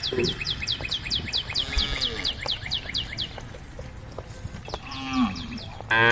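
Cattle mooing: a couple of short low moos in the middle, then a loud, full moo starting right at the end. Through the first three seconds a bird chirps fast and high, about five chirps a second.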